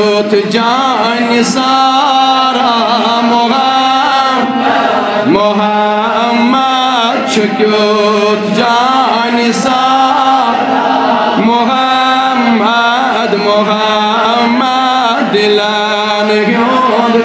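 A man singing a Kashmiri naat, a devotional song in praise of the Prophet Muhammad, as a melismatic chant through a microphone. His voice glides through long held notes over a steady low drone.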